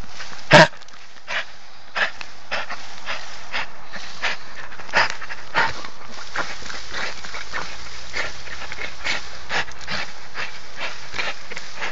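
American Staffordshire terrier panting and breathing hard right at the microphone, with irregular short scrapes and knocks as it jumps at the camera. The loudest knock comes about half a second in.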